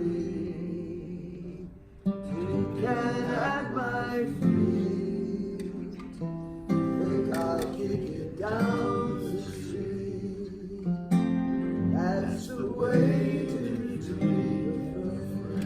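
A slow ballad sung to acoustic guitar: sung phrases come in every few seconds over steady guitar chords.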